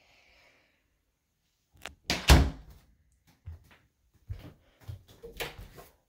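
Interior door shutting with a loud thud about two seconds in, followed by several lighter knocks and clicks.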